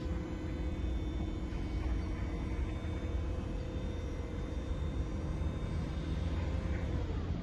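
Electric motor and hydraulic pump of a JLG E600JP battery-powered articulating boom lift whining steadily as the boom rises, then winding down and stopping near the end, over a steady low rumble.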